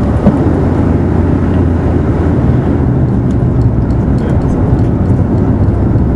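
Bombardier Dash 8 Q400 turboprop rolling out on a wet runway after touchdown, heard from inside the cabin: a loud, steady rumble of the Pratt & Whitney PW150A engine, the propeller and the tyres. Faint light ticks join about halfway through.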